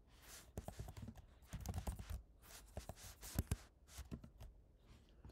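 Computer keyboard being typed on: a run of short, irregular key clicks and taps, with a couple of louder taps a little past the middle.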